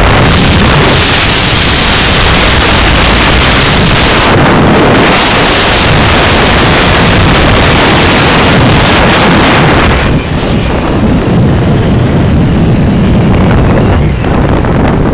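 Heavy wind blasting the microphone while riding on top of a moving truck: a loud, steady rush of noise that eases slightly about ten seconds in.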